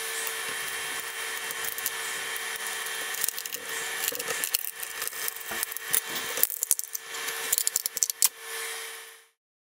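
A 3D printer's fans hum steadily while a scraper is worked under a printed tough-PLA sprocket on the glass bed; from about three seconds in, a run of sharp clicks and cracks comes as the part is pried loose from the bed. The sound cuts off abruptly just before the end.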